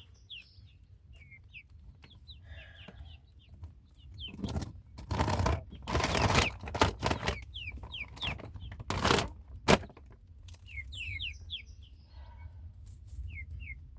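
Young chicks peeping: short, high, downward-sliding peeps scattered throughout. Several loud bursts of rustling and knocking cut in from about four seconds in and again around nine seconds.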